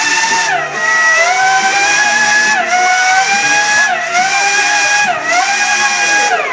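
High-pitched Formula 1-style engine note, climbing in pitch and dropping sharply about four times as it shifts up through the gears.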